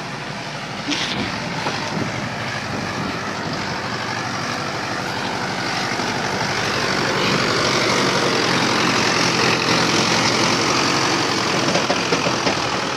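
Mahindra 415 DI tractor's four-cylinder diesel engine running under load as it tows a sand-laden trolley. It grows louder as the tractor comes close, loudest in the second half.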